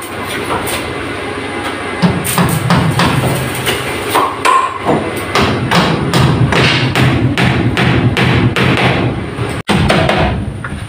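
Hammer blows nailing bamboo trim onto a wooden roof beam, several sharp strikes a second in irregular runs over a steady low hum.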